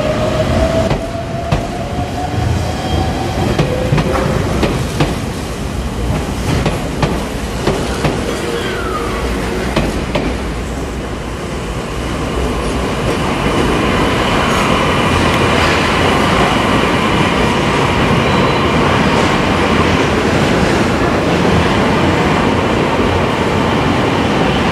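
Tokyu 1000 series electric train running on the rails: steady rumble with wheels clicking sharply over rail joints and points in the first half. From about halfway it grows louder, with a steady high whine, as a train runs in over the curves.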